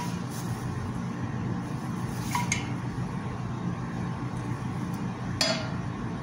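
A metal frying pan clinks against the gas stove's burner grate as it is shifted: two quick clinks about two and a half seconds in and a louder one near the end, over a steady low hum.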